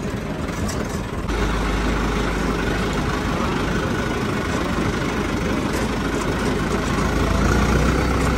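Tractor's diesel engine running steadily while the tractor drives along, its low drone turning louder and heavier suddenly about a second in.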